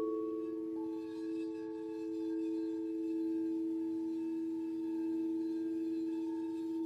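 Singing bowls ringing on after a strike, several steady pure tones sounding together with a slow waver in loudness. A further higher tone joins about a second in.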